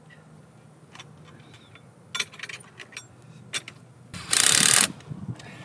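Light clicks and taps of metal tools on the rail, then a short, loud run of a battery-powered hand tool about four seconds in.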